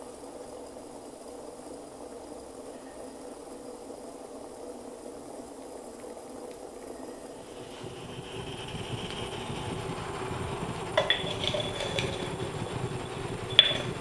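Water heating in the lower glass globe of a vacuum siphon coffee maker over a methylated spirits burner: faint steady bubbling that grows louder and fuller about eight seconds in, with a few sharp glassy clicks near the end.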